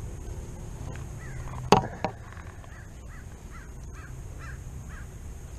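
A bird calling over and over in short, quick calls, a few a second. About two seconds in come two sharp knocks close together, the loudest sounds here, with a steady low rumble underneath.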